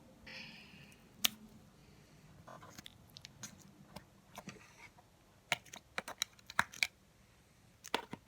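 Thick slime being pressed and tucked into the side holes of a plastic pencil sharpener lid, giving scattered sharp sticky clicks and small taps, coming more often a little after halfway through.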